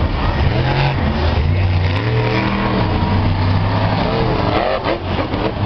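Grinder monster truck's supercharged V8 engine revving hard under throttle, its pitch rising and falling as the driver works it through the freestyle run.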